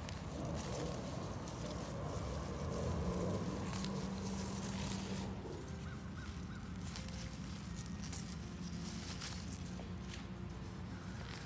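Radish leaves rustling and soil crumbling as radishes are pulled up by hand from a garden bed, with a bird calling in the background.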